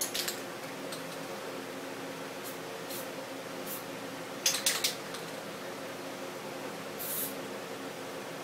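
Aerosol spray paint cans hissing in a few short bursts, with a sharp cluster of them about halfway through and a brief hiss near the end, over a steady low hum.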